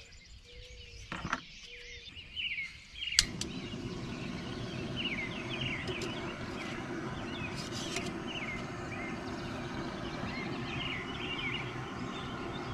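A sharp click about three seconds in, then a gas camp stove burner burning with a steady rushing hiss as water is heated for coffee. Birds chirp throughout.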